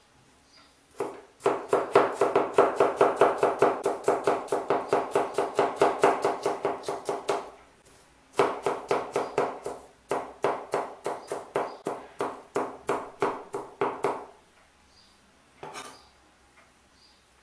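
Kitchen knife rapidly chopping onion on a cutting board, about five strokes a second, in two runs of several seconds with a short pause between them, then a single chop near the end.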